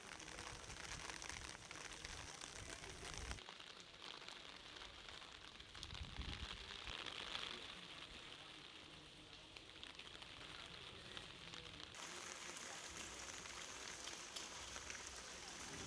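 Heavy rain falling, a faint steady hiss, with abrupt changes in tone about three and a half and twelve seconds in where the recording cuts between shots.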